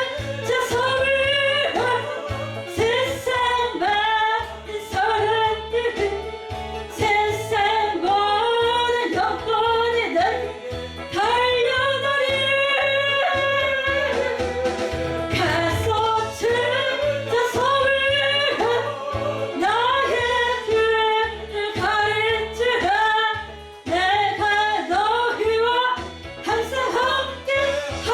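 A worship song sung over instrumental accompaniment, with the sung melody running continuously.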